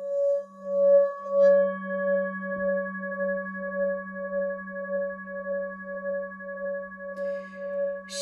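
Throat chakra singing bowl ringing on in one sustained tone that wavers in a steady pulse, about two and a half pulses a second, over a quieter low hum. Its upper overtones brighten about a second and a half in.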